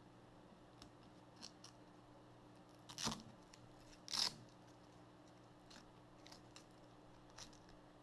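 Close-up handling of small plastic connectors and cables: scattered light clicks and two brief, louder scraping rustles about three and four seconds in, over a steady low hum.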